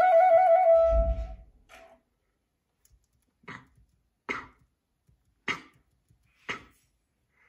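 Music ends on a held woodwind note with a slight wobble about a second in, with a low thump. Then come four short, sharp clicks, roughly a second apart.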